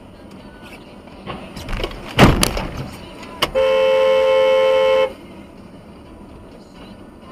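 A vehicle collision, heard as a quick run of crunching impacts, the loudest about two seconds in. Then a car horn sounds in one steady held honk for about a second and a half.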